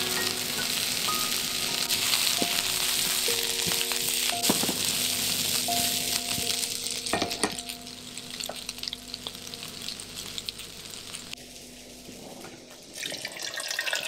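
Chestnuts and onions sizzling in a frying pan, with a few sharp knocks from stirring. The sizzle fades after about eight seconds, and water starts pouring into a plastic measuring jug near the end. Soft background music with sustained notes plays throughout.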